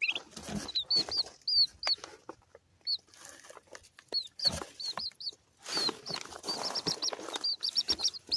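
Young chickens peeping: many short, high, arched peeps, some coming in quick runs near the end, over scuffling and rustling noises.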